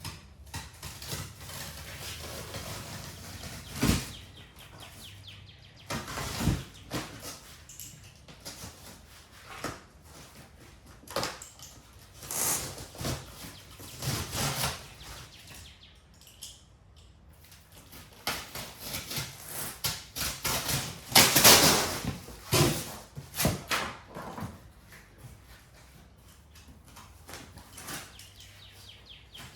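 Unpacking noises: packaging rustling and being handled, with scattered knocks and thumps, a sharp knock about 4 s in and another about 6.5 s in, and the heaviest rustling in a stretch after the middle.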